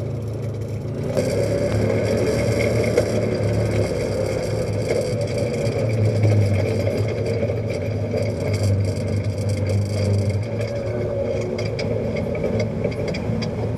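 Side-by-side UTV's engine running steadily as it drives a rough dirt trail, heard from the driver's seat, with rattling and clatter from the vehicle over the bumps. The engine note eases about ten seconds in, and more rattles follow.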